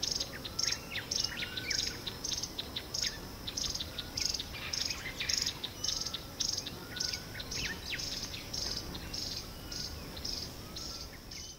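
Natural chorus of birds and insects: a high chirp repeating steadily about twice a second, with quick short chirps and a few brief rising whistles mixed in.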